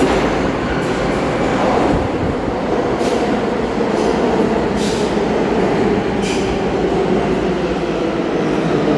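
R143 subway train entering an underground station and running past the platform: a loud, steady rumble with a held hum from the train. Three brief sharp, high noises break through about 3, 5 and 6 seconds in.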